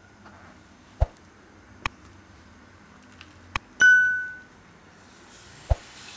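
A few sharp clicks, then a bright ding that rings for about half a second just under four seconds in. Near the end, chopped dates go into hot ghee in a kadai and begin a faint sizzle, with a knock of the bowl or spatula against the pan.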